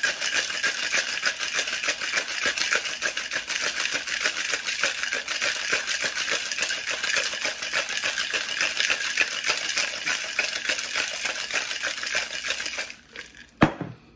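Ice cubes rattling hard inside a Boston shaker, a metal tin fitted over a pint glass, being shaken vigorously to chill a cocktail. The shaking stops about a second before the end, followed by one sharp knock.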